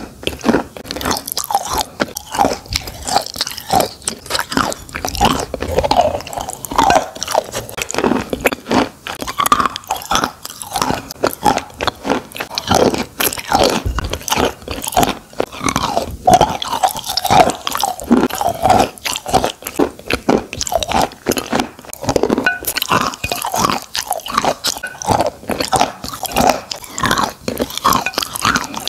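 Close-miked chewing of wet chalk coated in paste: a dense, steady run of small crunches and wet mouth clicks.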